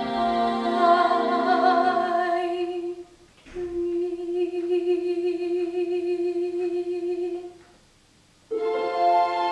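A girl's solo singing voice in a musical-theatre ballad, holding long notes with vibrato. There is a brief break for breath about three seconds in, then another long held note, and a near-silent pause before the music comes back in near the end.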